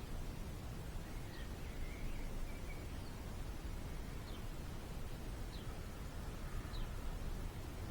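Faint bird chirps, short high falling notes about once a second with a few lower notes between, over steady low outdoor background noise.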